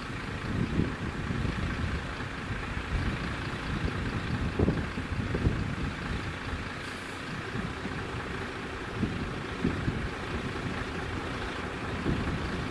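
Diesel lorry engine idling, with uneven gusts of wind rumbling on the microphone.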